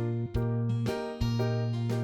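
Background music: a light instrumental tune on piano or electric keyboard, with notes struck about once or twice a second over a held bass note.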